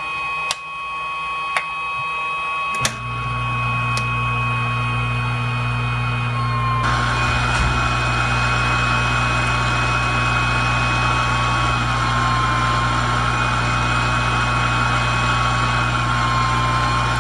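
Hot-air rework equipment running on a circuit board, heating a CPU's solder until it comes loose. A steady, slightly wavering whine runs throughout, with three sharp clicks in the first three seconds. A low hum comes in about three seconds in, and about seven seconds in a rush of air gets louder.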